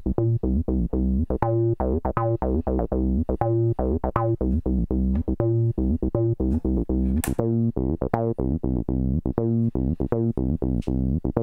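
Cyclone Analogic TT-303 Bass Bot, a Roland TB-303 clone, playing a machine-generated acid bassline: a fast, steady run of short, buzzy synth bass notes, about five a second, each with a quick filter pluck and some notes accented.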